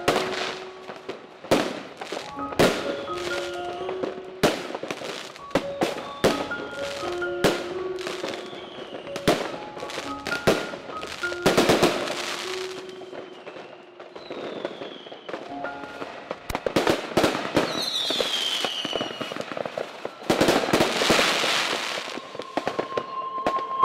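Fireworks going off: repeated sharp bangs, crackling bursts and a couple of falling whistles, layered over background music with a light melody of short notes.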